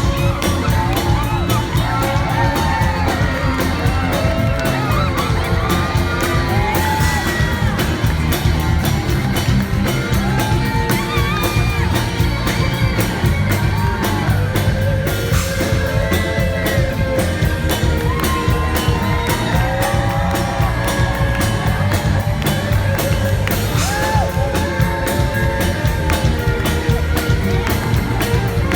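Live band playing with a steady beat under a sung melody, with a crowd whooping and cheering along.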